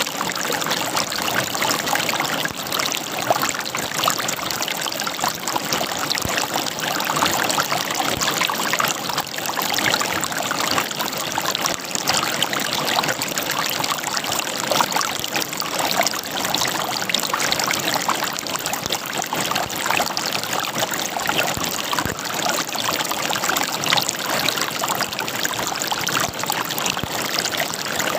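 A shallow stream or river running over rocks, gurgling and splashing steadily with many small trickles and splashes.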